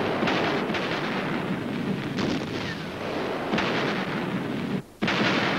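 Heavy artillery firing: several heavy blasts over a continuous rumble, with a brief break near the end.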